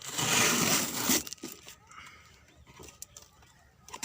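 A loud rustling, crinkling noise lasting about a second, then a few faint clicks: handling noise as the microphone and its packaging are moved about.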